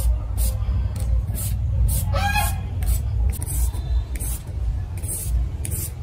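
A carrot being shredded on a handheld julienne grater: repeated short scraping strokes, roughly one or two a second.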